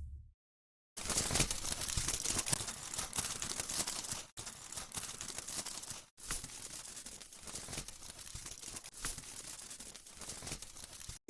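Crackling sizzle of food frying in a pan, laid in as a sound effect in three stretches with abrupt cuts between them.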